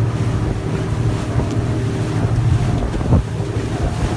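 Motorboat engine running steadily under wind buffeting the microphone and the rush of churning wake water, with a sharp thump a little after three seconds in as spray comes over the boat.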